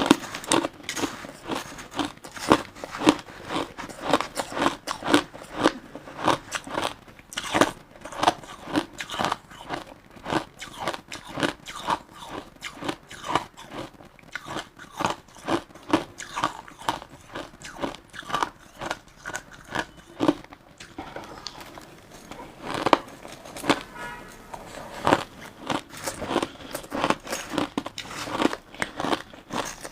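Crushed ice being bitten and chewed, loud crunches about two a second, with a brief run of finer crackling a little past two-thirds of the way through.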